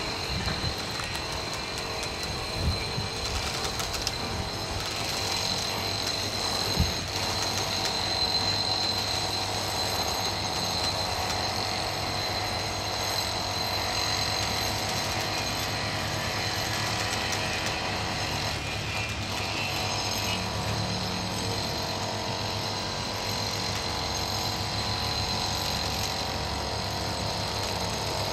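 Steady mechanical noise from running machinery, with several held tones, and two sharp knocks about three and seven seconds in.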